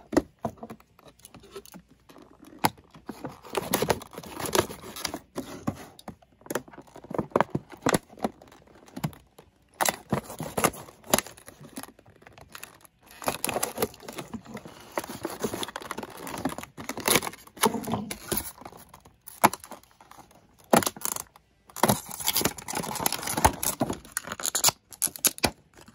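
Clear plastic amiibo blister packaging being handled and torn open by hand: irregular crinkling, scraping and tearing with sharp snaps and clicks, coming in bursts with short pauses.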